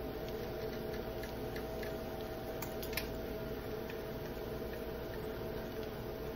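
A steady hum from a running kitchen appliance, with a few faint ticks about two and a half and three seconds in.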